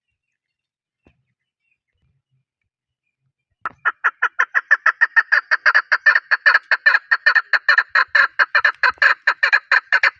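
Chukar partridge calling: a rapid, even run of short notes, about six a second, beginning about three and a half seconds in.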